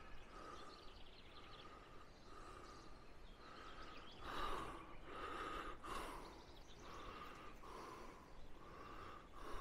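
Faint, heavy breathing of the man holding the camera, close to the microphone, one breath about every second. He calls it breathing super heavy and puts it down to lungs burnt by chemicals years ago, not to being out of breath.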